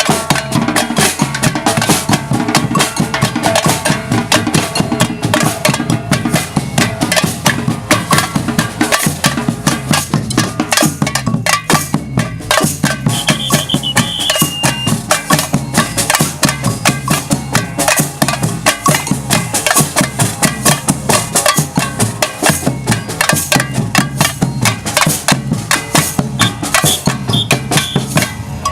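Percussion band playing a fast, steady rhythm on drums, with cowbell and wood-block strikes.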